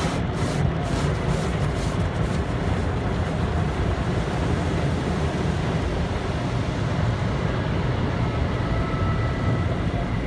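Automatic car wash heard from inside the car: a steady low rumble of machinery with water spraying against the windows. There is a rhythmic swishing in the first second or so.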